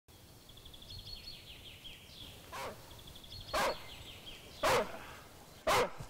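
A dog barking four times, about a second apart, the first bark fainter. A songbird sings a trilling phrase twice in the background.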